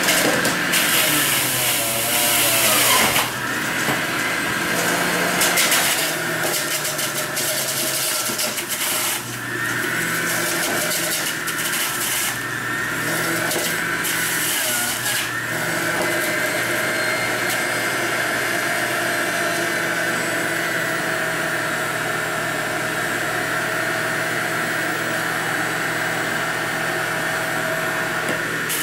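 Breville multi-speed centrifugal juicer running on speed 3, the citrus setting, its motor humming steadily while grapefruit is pushed down the chute and shredded. The shredding comes in louder grinding bursts through roughly the first fifteen seconds, then the motor runs on evenly.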